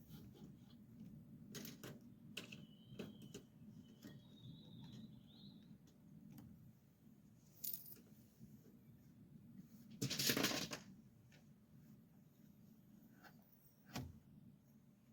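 Faint scraping of a utility knife blade drawn along the wood, deepening the scored outline of a hinge recess, with small scattered clicks of the blade and tools being handled. The loudest is one short scrape about ten seconds in.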